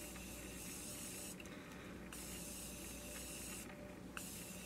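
Faint hiss of a Morphe Continuous setting-mist bottle being sprayed onto the face in a few long sprays, with short breaks about a second and a half and about four seconds in.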